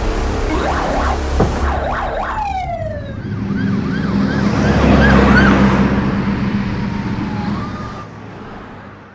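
Police siren sounds: a falling wail about two and a half seconds in, then a quick, repeated warble, over a steady low hum. Fades out near the end.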